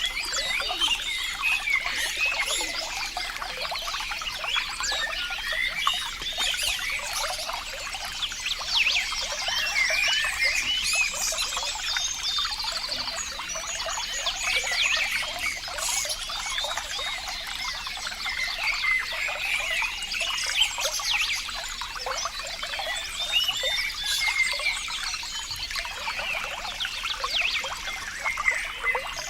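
Running water trickling and burbling steadily, like a small stream or brook flowing over stones.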